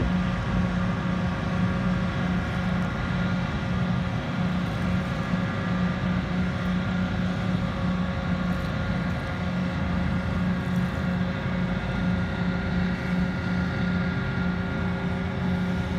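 Towboat's diesel engines running steadily under load while pushing barges, a low pulsing hum with steady tones above it over a rumble of engine and wash.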